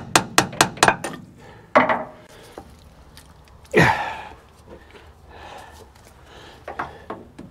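Quick metallic taps, about four a second, from a hammer knocking the joining link into a steel roller chain, with a few heavier knocks in the middle, the loudest about four seconds in; the tapping starts again near the end.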